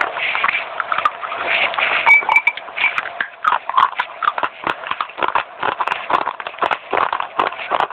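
Fast, dense crunching and chewing of dry baked clay, a continuous run of sharp crackles and crunches.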